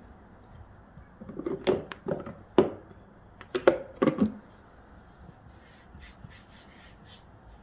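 A quick run of light knocks and clatters from kitchen things being handled on a work surface, bunched into about three seconds, then only faint room noise.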